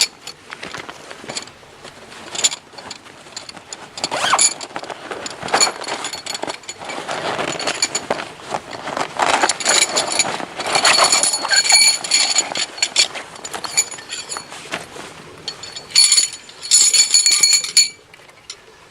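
Metal parts clattering and knocking together in an irregular run, with short bursts of bright metallic ringing about halfway through and again near the end.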